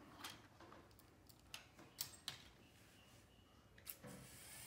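A few faint clicks of plastic parts being handled. About four seconds in, a LEGO Power Functions Large motor starts with a low, steady electric hum as it drives the rear wheels of the LEGO Technic car.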